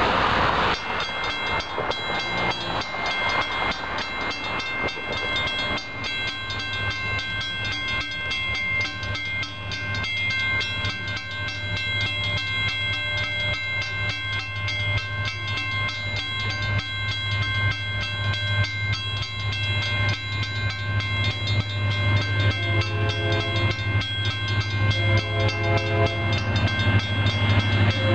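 Railroad crossing signal bells ringing continuously while an approaching Canadian National freight's diesel locomotive makes a low drone that grows steadily louder. Near the end the locomotive horn sounds in a series of long blasts for the crossing.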